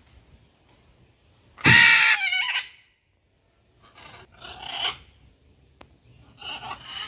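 Macaws screeching: one loud, harsh squawk about two seconds in, falling at its end, then shorter squawks around four to five seconds and again near the end.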